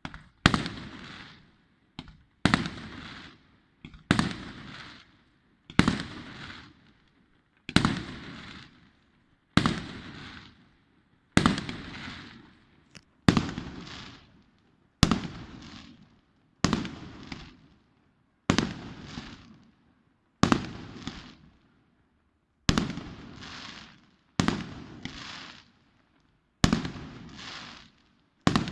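Fireworks display: aerial shells bursting one at a time, a sharp bang about every two seconds, each trailing off in a rumble.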